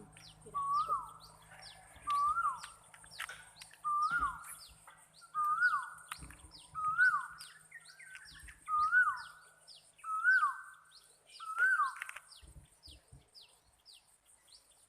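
A bird repeats a short whistled call that rises then falls, about every second and a half, nine times, before stopping near the end. Quick high chirps and a steady high hiss run underneath.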